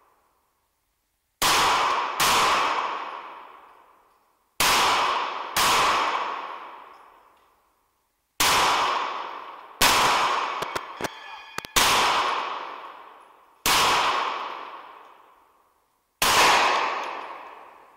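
Nine pistol shots fired at an uneven pace, two of them in quick pairs near the start. Each shot rings out with a long echo that dies away over about two seconds in a large empty concrete hall. A few light ticks follow the sixth shot.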